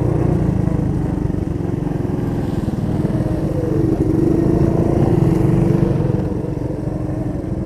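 Small dirt bike engine running steadily at part throttle while riding a dirt trail. Its pitch and loudness rise a little about halfway through and then ease back.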